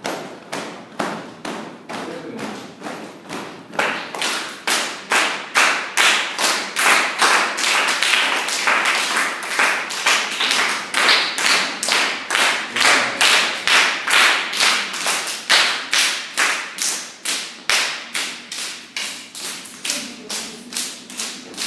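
A group of children and adults clapping their hands together in time, a steady beat of about two to three claps a second. The clapping grows louder about four seconds in and thins out near the end.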